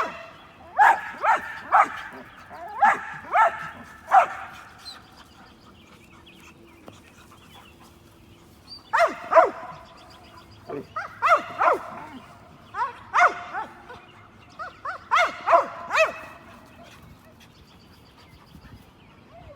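Dogs barking at a squirrel in bursts of several quick barks, with pauses of a few seconds between bursts.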